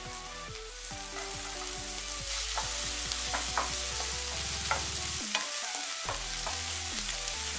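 Diced onions and chopped capsicum sizzling in butter in a nonstick frying pan, stirred with a wooden spatula that scrapes and taps against the pan. The sizzle grows louder about two seconds in.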